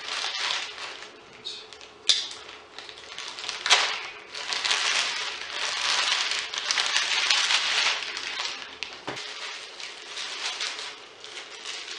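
Plastic poly mailer being slit with a small knife and torn open, crinkling and rustling in bursts, with a couple of sharp snaps about two and four seconds in; then the clear plastic bag around a pair of socks crinkles as it is pulled out and handled.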